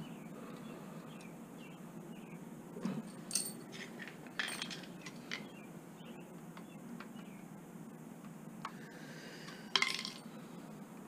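Light metallic clicks and scrapes of a thin pick and a screwdriver working on a scrap kitchen tap, with a short louder clatter of metal tools near the end.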